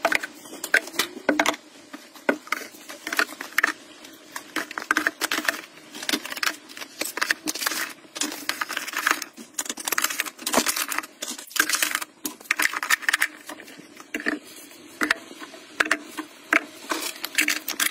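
Plastic bottles being set down and slid into the cubbies of a wooden cabinet: irregular clicks, taps and knocks of hard plastic on the shelves and against each other.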